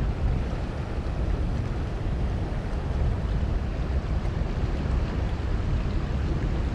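Steady rush of high spillway water flowing over rocks, with wind buffeting the microphone in a low rumble.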